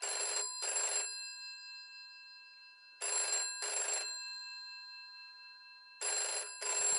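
Old rotary telephone's bell ringing in double rings, three rings about three seconds apart, its tones lingering and fading between them.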